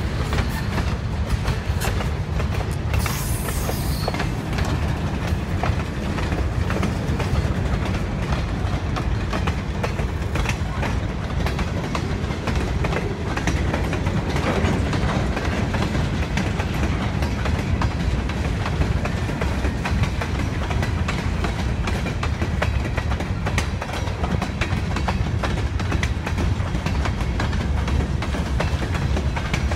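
Freight train cars rolling past close by, a steady low rumble with rapid clicking of the wheels over the rail joints. A brief high-pitched noise comes about three seconds in.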